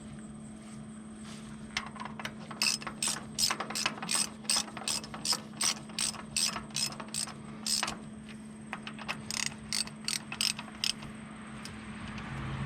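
Socket ratchet wrench being worked in quick strokes, about three clicks a second with a short pause partway, tightening the bolts on a tractor's hydraulic line fitting.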